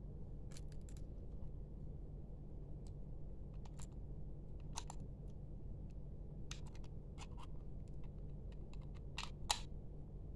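Small plastic clicks and taps from an Acer wireless mouse being handled as its battery cover is fitted back over the AA battery, with a pair of sharper clicks about nine seconds in as the cover snaps shut. A low steady hum runs underneath.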